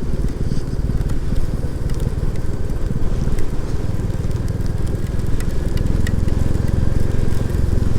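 Royal Enfield Classic 350's single-cylinder engine running steadily under way, with wind and road noise and scattered faint ticks. The low engine note grows a little fuller about six seconds in.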